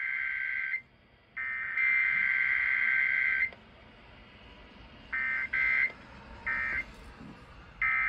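Emergency Alert System digital data bursts (SAME header tones) played through a radio speaker: a harsh, buzzing two-tone screech. One burst cuts off about a second in and a second runs to about three and a half seconds, then four short bursts follow, the last right at the end.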